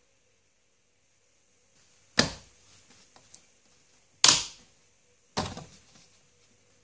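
Three sharp plastic snaps from the VW Golf VI's gear-lever boot surround as it is pulled free of its retaining clips in the centre console. The first comes about two seconds in, and each dies away quickly.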